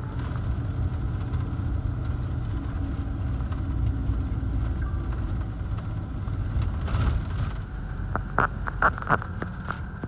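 Motor vehicle running steadily with a low engine and road rumble, with a few short sharp knocks or rattles about eight to nine seconds in.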